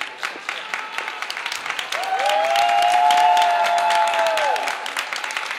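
Audience applauding with dense clapping. About two seconds in, two voices in the crowd join with a long high cheer held on one pitch, which tails off after about two and a half seconds.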